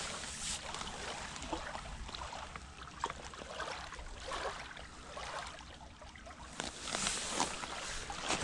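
Small waves lapping and washing against a pebble shore, an uneven splashing and trickling that swells again near the end.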